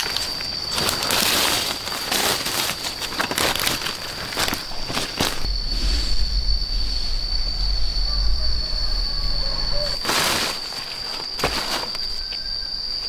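Insects droning steadily at one high pitch, under rustling, crunching footsteps through undergrowth. A low rumble comes in about five seconds in and stops near ten seconds.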